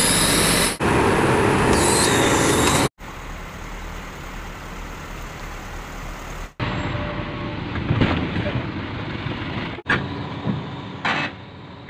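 Heavy vehicle engine noise in several short clips cut together, the first few seconds loud and dense, the later ones quieter with a few knocks near the end.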